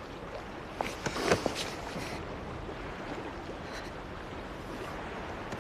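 Steady wash of lapping water, with a few sharper, louder strokes about a second in.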